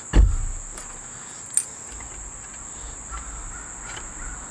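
A frying pan set down on a wooden picnic table with a thud right at the start, then a single sharp click about a second and a half in, over a steady high-pitched insect drone.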